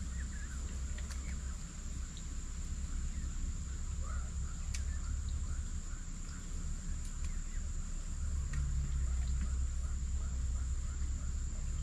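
Insects trilling, one steady high-pitched tone, with a quick run of faint bird chirps in the middle, over a low rumble.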